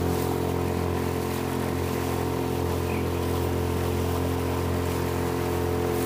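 Honda 2.3 hp single-cylinder four-stroke outboard motor running at a steady speed, driving a small boat along under way.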